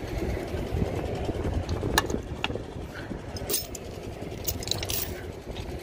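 Tractor engine idling with a steady low rumble while a steel pulling chain is handled and clinks a few times.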